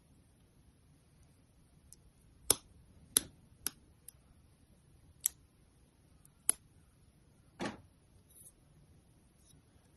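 Plastic parts of a Bandai MGSD Freedom Gundam model kit head being pressed and snapped together by hand: about six sharp separate clicks, then a slightly longer click near the end.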